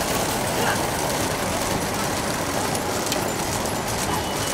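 Steady rushing noise of a moving vehicle and wind, even throughout.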